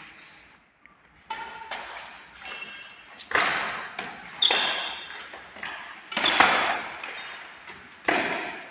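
Badminton rackets striking a shuttlecock in a rally: about five sharp hits, one to two seconds apart, each with a ringing echo that fades out in a large hall.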